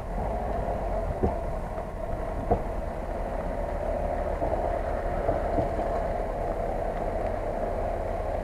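Mitsubishi Pajero's engine running steadily under load as the SUV crawls through deep mud. Two sharp knocks come about a second and two and a half seconds in.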